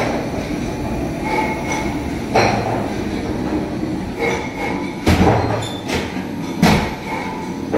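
Steady mechanical rumble, with sharp metal clanks in the second half as the steel doors of a brake-shoe curing oven are swung shut and latched.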